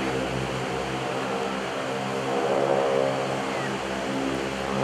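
Formation of North American T-6/SNJ Texans flying overhead: the steady drone of their nine-cylinder Pratt & Whitney R-1340 Wasp radial engines and propellers, swelling slightly about halfway through.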